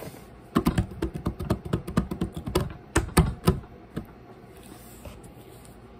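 A quick, irregular run of sharp clicks and taps, several a second, stopping about four seconds in.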